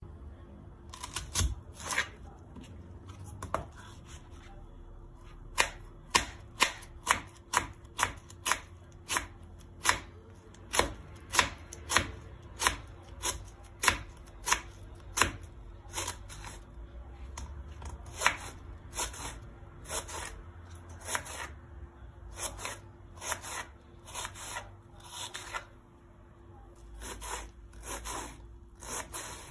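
Knife chopping a peeled onion on a wooden cutting board: sharp cuts at about two a second, later more irregular and spaced out.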